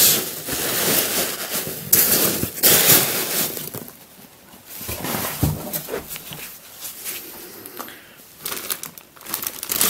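A hand rummaging through foam packing peanuts in a cardboard box, rustling in several loud bursts over the first few seconds. After that come quieter, scattered rustles, fitting the clear plastic bag that holds the puzzle.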